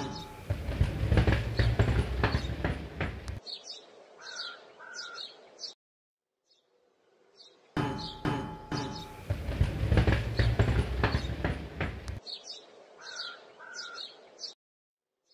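Rolling-ball sound effect: a rumble with dense rattling clicks for about three seconds, then a few short high chirps, cutting to silence. The same sequence plays twice.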